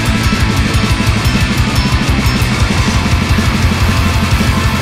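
Heavy metal band playing an instrumental passage: distorted electric guitar and bass guitar over a drum kit, with a fast, steady, driving low-end beat.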